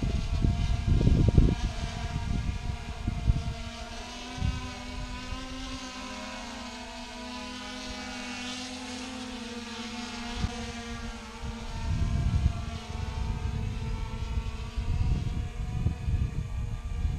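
Hubsan X4 quadcopter's propellers whining in flight, several tones drifting up and down in pitch as it manoeuvres. Gusts of wind rumble on the microphone near the start and again in the second half.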